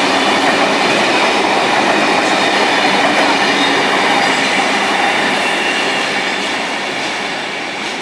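Sydney Trains double-deck electric train passing close by at speed: a steady rush of wheels on the rails that fades as it moves away near the end.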